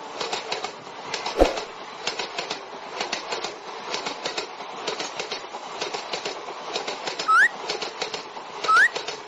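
Train running sound effect: a dense rattling clatter of clicks on rails, with one louder thump about a second and a half in. Near the end come short rising chirps, twice, about a second and a half apart.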